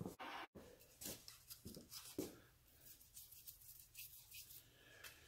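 Near silence with a few faint rubbing strokes, mostly in the first half: way lube being spread by hand over the surface grinder's slideways.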